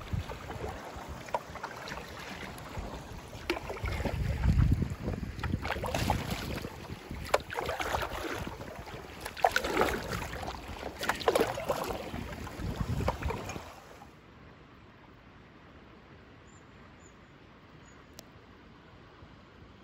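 Packraft paddles dipping and splashing in the water, uneven strokes every second or two, with a low wind rumble on the microphone about four seconds in. About fourteen seconds in it drops suddenly to quiet, calm water with a couple of faint high chirps.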